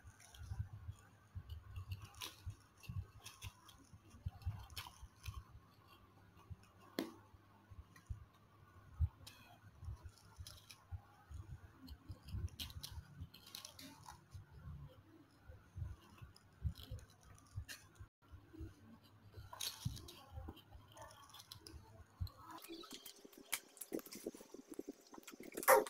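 Close-up eating sounds of instant noodles being slurped and chewed, with light irregular clicks of a metal fork and spoon against a plastic tray, over a low steady hum. Near the end the hum stops and a plastic water bottle is handled, giving the loudest noise.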